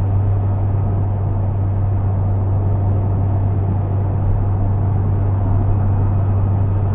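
Steady road and engine noise heard from inside a car cruising at highway speed, with a strong, constant low drone.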